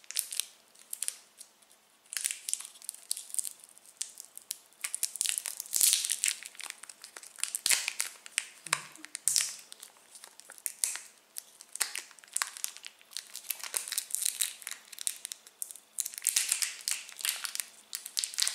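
Plastic candy wrapper crinkling and tearing as a pack of chewy sweets is opened and a wrapped piece unwrapped, in irregular runs of crackles.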